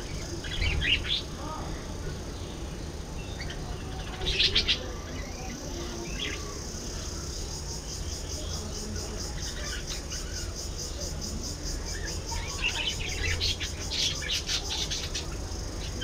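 Budgerigars chirping and chattering in short bursts, busiest about four seconds in and again over the last few seconds, over a steady low hum.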